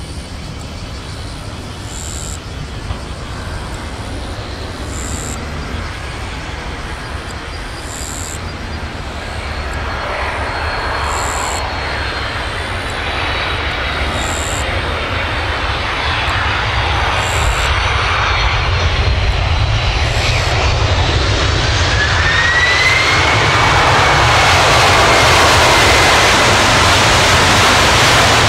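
Boeing 767-300 airliner on final approach, the jet noise of its two turbofan engines growing steadily louder as it comes in low. A faint high whine glides slowly down through the middle, and a second whine rises and holds as the jet passes close near the end.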